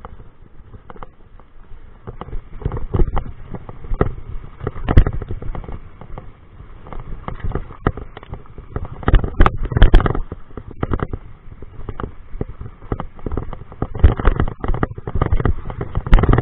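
Mountain bike clattering and rattling over loose rocks and roots, heard through the handlebar-mounted camera as a run of irregular knocks and jolts. The hardest knocks come about five and ten seconds in and again near the end.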